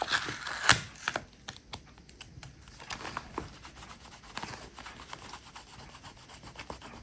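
Brushing the drawn teeth on a handmade paper quiet-book page: quick rubbing and scratching strokes against the paper, busiest in the first second or so, then lighter.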